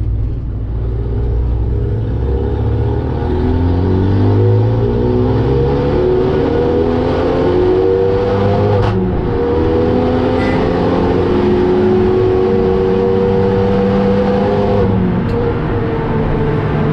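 Renault Mégane 3 RS's turbocharged four-cylinder engine accelerating, heard from inside the stripped, roll-caged cabin over road and tyre noise. Its pitch climbs through the first half, breaks with a sharp click about nine seconds in as it shifts, then runs on at speed.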